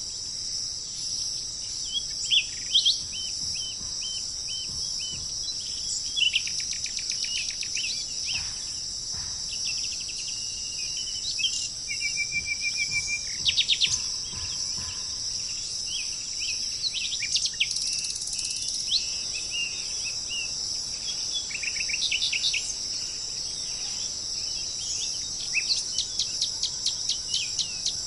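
Several birds chirping and calling in short repeated notes and quick trills over a steady high drone of insects.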